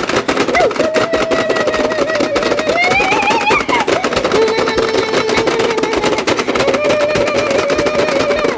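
Rapid, continuous clicking of Pie Face Showdown's plastic buttons being hammered as fast as possible by both players. A long held, wavering vocal note runs over it and drops lower about halfway through.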